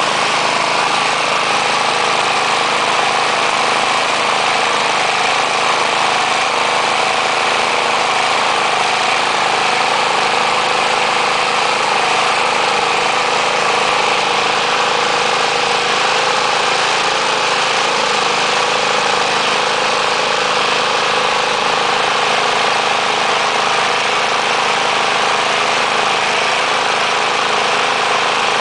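A 1991 Murray 20-inch push mower's 3.5 hp Briggs & Stratton Classic engine running at a steady speed. It has a newly replaced carburetor diaphragm, the fix for the revving up and down a wrinkled diaphragm causes.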